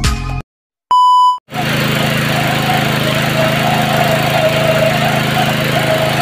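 A short, loud electronic beep about a second in, then a small gasoline-engine water pump starts and runs steadily, with water splashing from its outlet.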